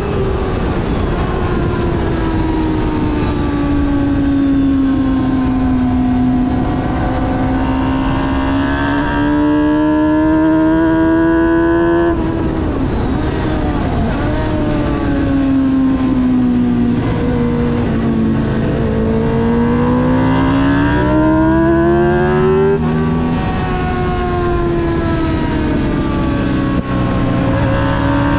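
On-board sound of a motorcycle engine lapping a circuit, its pitch sinking slowly and climbing again as it slows for and powers out of corners, with abrupt drops in pitch at gear changes, over steady wind and road rush.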